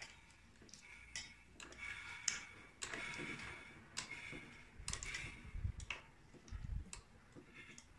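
Irregular light metallic clicks and clinks of hand tools working on a Mitsubishi 4D33 diesel engine during valve-clearance adjustment, with a few dull low knocks about five to seven seconds in.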